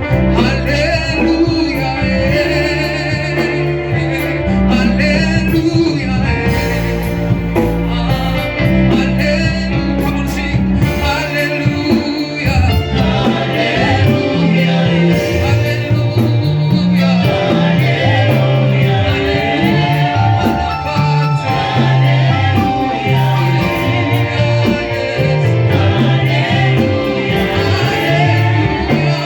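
Gospel singing with instrumental accompaniment: voices holding wavering melody lines over a bass line of held low notes.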